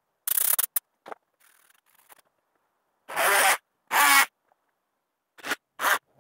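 Five short bursts of swishing noise, each about half a second, with dead silence between them: wood chips and dust being cleared off a freshly CNC-carved white oak sign.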